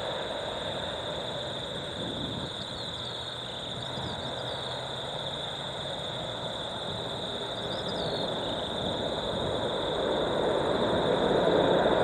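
Boeing 777-200ER jet airliner's engines, a steady rush with a high whine, growing louder over the last few seconds.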